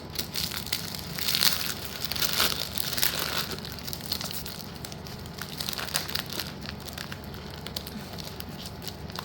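Plastic packaging crinkling and rustling as packs of slate pieces are handled, with scattered small clicks. Busiest in the first few seconds, then quieter and sparser.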